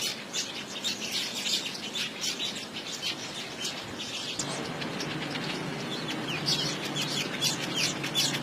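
Small birds chirping in quick, repeated short notes. A low steady rushing noise joins about halfway through.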